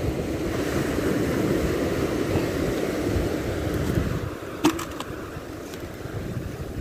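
Wind buffeting the microphone over surf breaking on rocks below, a steady low rumble that eases a little after about four seconds. A single sharp click comes a little over halfway through.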